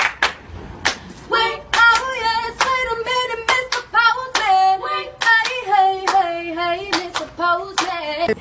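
Hand claps in a steady rhythm, about three a second, with a voice singing a tune over them from about a second and a half in.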